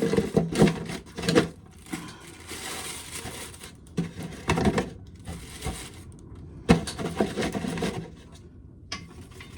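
Dried ear corn being shelled: irregular rasping scrapes and knocks as the kernels are worked off the ears, with a sharp knock about two thirds of the way through.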